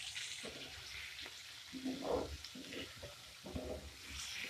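Diced chicken sizzling in hot ghee with chopped garlic in a frying pan, being stirred and turned with a slotted spatula. The spatula scrapes against the pan a few times over a steady sizzle, loudest about two seconds in.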